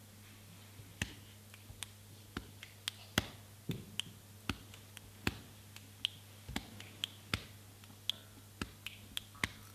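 Sharp, irregular clicks made by hand by a performer, about two to three a second, starting about a second in. A faint steady low hum runs underneath.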